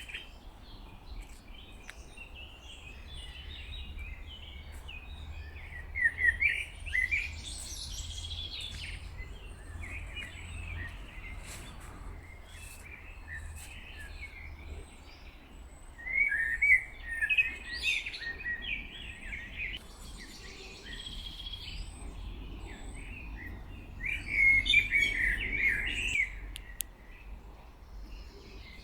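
Several songbirds singing and chirping in a forest, with short phrases throughout and louder bursts of song about a quarter of the way in, around the middle, and near the end, over a steady low rumble.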